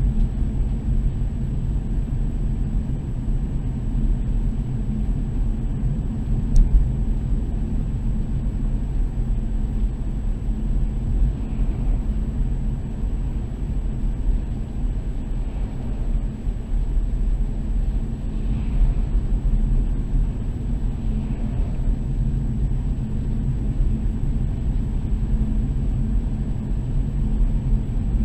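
Car driving: a steady low rumble of engine and tyres on the road, with a short click about six and a half seconds in.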